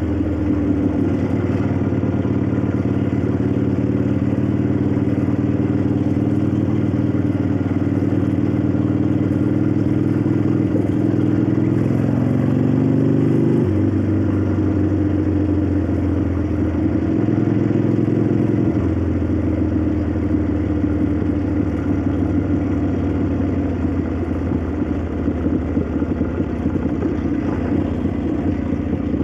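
1965 Harley-Davidson XLCH Sportster's air-cooled Ironhead V-twin running under way, its exhaust note mixed with the valvetrain clack and rattles that are usual on this engine. The engine note drops in steps about halfway through and runs lower and rougher after that.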